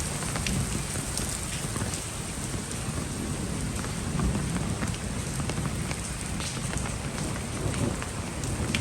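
Heavy rain pouring down steadily, with many individual drops ticking sharply on surfaces close by, over a low rumbling undertone.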